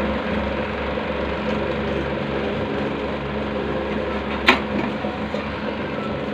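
A small motor running steadily with a low hum, and one sharp click about four and a half seconds in.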